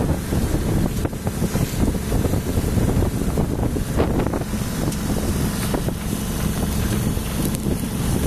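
Wind buffeting the microphone on an open boat, over water rushing and slapping along the hull. A low, steady hum runs underneath from about halfway.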